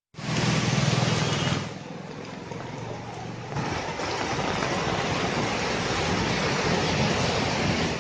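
Road traffic: a vehicle engine running under a steady rushing hiss, with a strong low engine hum in the first second and a half.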